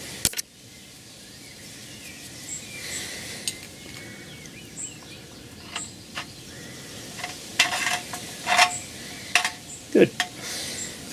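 Metal tools and parts being handled: scattered light metallic clinks, taps and scrapes, with a cluster of louder ones in the second half.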